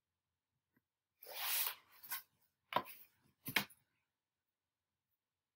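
Paper rustling as a page of a spiral-bound chart pad is handled and turned: one longer rustle about a second in, then three short crisp crinkles.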